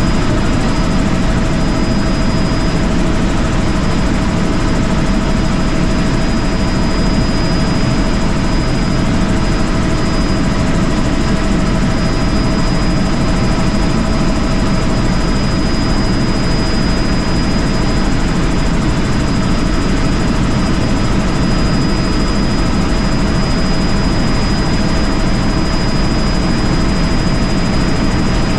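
Helicopter in flight: a steady, unchanging rotor and engine noise with a few thin whines on top, one of them high-pitched.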